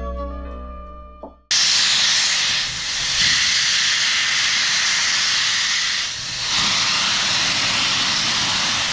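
A music outro fades out, then about a second and a half in a loud, steady hiss of steam starts abruptly: a steam locomotive venting a large cloud of steam. The hiss dips briefly twice.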